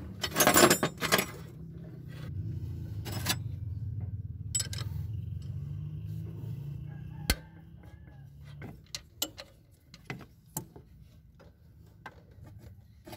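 Metal clinks and knocks of hand tools and bolts against an alternator being worked loose from its mount: a burst of clatter about half a second in, then scattered single knocks. A low rumble runs underneath from about two seconds in until about eight seconds in.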